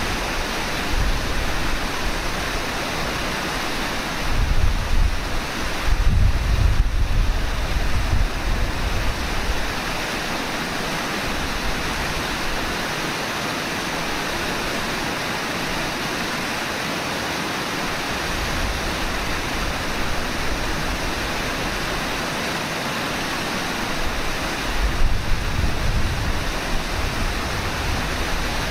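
Steady rush of fast-moving river water, with low wind buffets on the microphone about four seconds in and again near the end.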